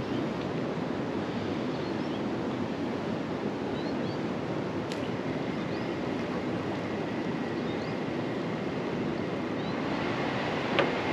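Water churning in a canal lock chamber as it fills: a steady rushing wash from the turbulent inflow that boils up the surface. A single sharp knock near the end.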